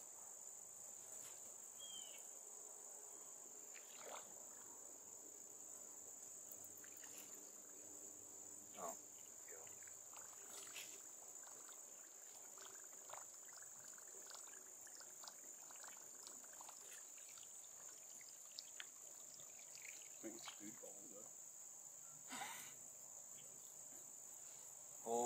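Faint, steady, high-pitched insect chorus that keeps going without a break, with a few faint scattered clicks and distant voices.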